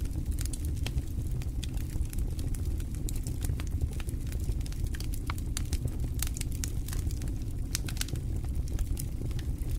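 Irregular crackling clicks over a steady low rumble, with no music or voice.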